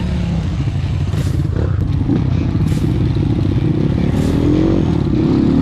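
Trail motorcycle engine running under throttle while riding over a dirt and gravel track, its pitch climbing and dropping again about four seconds in as the rider revs it.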